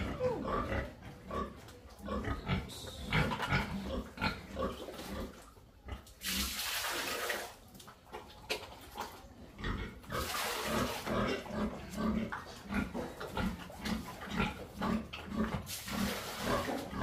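Domestic pigs grunting over and over in short low calls, about twice a second in the second half. Three bursts of rushing noise, a bucket being emptied into a concrete pen, come about six seconds in, about ten seconds in and near the end.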